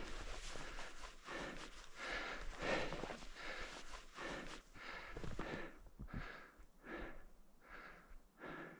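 A person breathing hard and fast, short panting breaths close to the microphone, a bit more than one a second, getting a little quieter in the second half.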